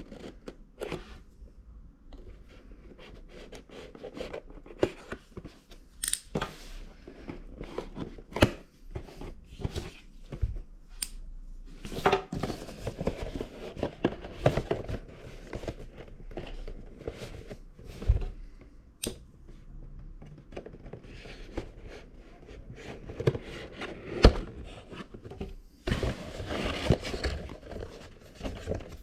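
Hands opening and handling a CPU's retail box and plastic packaging: scattered clicks and taps, with stretches of cardboard and plastic rustling.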